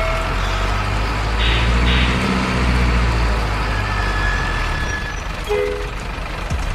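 Heavy diesel truck engine running steadily at a low rumble, with two short hissing puffs about one and a half and two seconds in.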